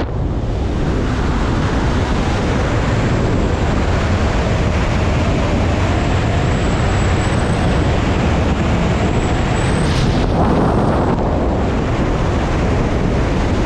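Wind rushing over the camera's microphone as a parachutist descends under an open canopy: a steady, loud rush, with a faint high whistle for a few seconds in the middle.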